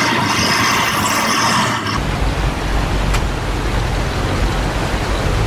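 A heavy military truck's diesel engine works hard as the truck fords a river. About two seconds in, it cuts to another military truck ploughing through a fast whitewater river: a deep engine rumble under the steady rush of water.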